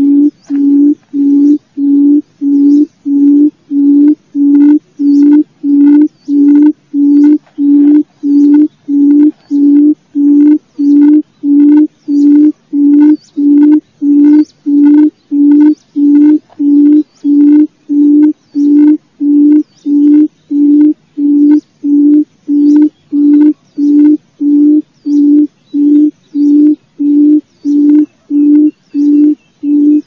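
Barred buttonquail booming call: a long run of low, identical hoots repeated evenly about one and a half times a second.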